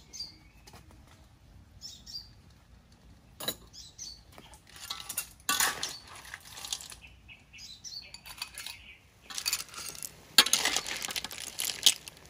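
Metal spatula scraping a steel wok and cooked clam shells clinking against each other and into a glass bowl as they are scooped out. The clatter comes in two spells, about five seconds in and again near the end.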